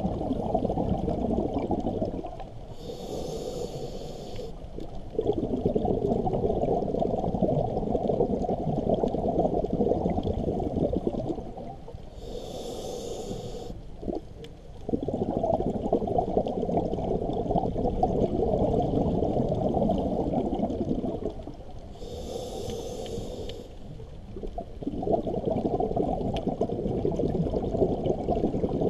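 A scuba diver breathing through a regulator underwater. Three short hissing inhales come about nine and a half seconds apart, each followed by a long bubbling exhale.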